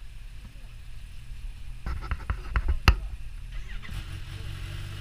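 Kawasaki Ninja H2 motorcycles idling with a low rumble, and a quick run of clicks and knocks about two to three seconds in, the sharpest near the end of that run.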